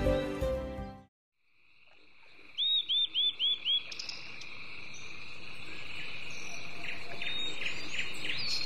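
Background music stops about a second in. After a moment of silence, a steady high insect drone fades in and grows louder, with a run of five quick arching chirps about three seconds in and more chirps near the end.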